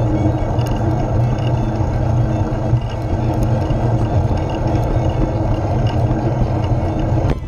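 Steady wind noise rushing over the microphone of a camera riding on a moving recumbent trike.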